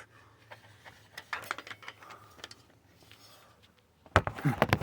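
Small tools and metal bits clicking and rattling as someone rummages for a small screwdriver, then a loud scraping rustle about four seconds in.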